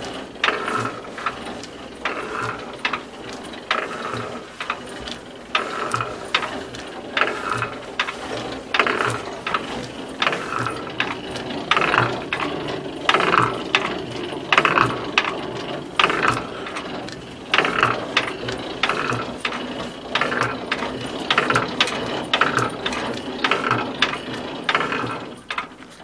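1945 National DSH single-cylinder diesel marine engine running, with a regular sharp metallic clacking in time with its beat. This is the strange noise the owner says is loudest off throttle, and which he traces to the camshaft or fuel cam rather than to play in the crank, connecting rod or piston pin.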